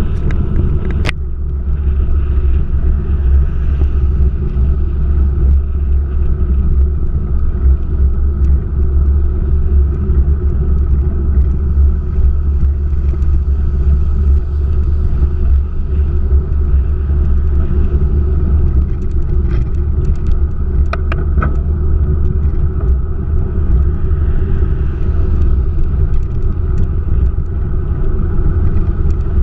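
Steady low rumble of a car driving: engine and road noise. A sharp click about a second in and a few faint clicks around twenty seconds in.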